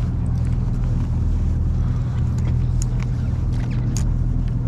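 Charter fishing boat's engine running, a steady low drone, with a few faint clicks over it.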